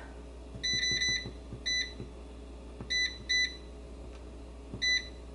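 Cosori air fryer's touch control panel giving short electronic beeps, about seven in all, one for each press of the minus button as the cooking time is stepped down to 8 minutes. Several come in a quick run about a second in, then single beeps follow a second or so apart.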